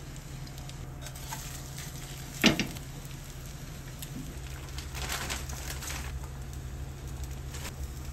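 Chive and shrimp pancake batter sizzling as it fries in a square frying pan, over a steady low hum. One sharp knock about two and a half seconds in, and a burst of louder crackling around five to six seconds.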